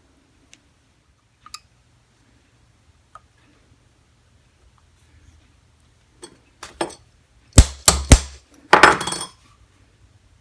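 Tools and small metal parts clinking and knocking on a workbench. A few light scattered clicks are followed by a burst of loud clinks and knocks in the last few seconds.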